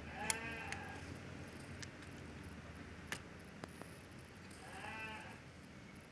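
Two drawn-out animal calls, each about a second long, about five seconds apart, with a few sharp clicks between them.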